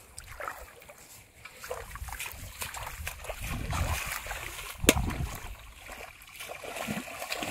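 Splashing and sloshing of shallow water as a person wades through it and flings water from a metal pot, building up from about two seconds in. A single sharp knock a little before five seconds in is the loudest sound.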